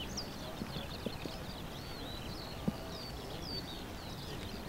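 Small birds twittering, a busy run of short, high chirps and whistles, over steady outdoor background noise, with a few soft knocks, one about a second in and a sharper one near the middle.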